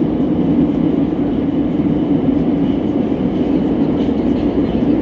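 81-765.4K (Moskva-2019) metro train running between stations, heard from inside the car: a steady, loud rumble of the moving train with a constant low hum.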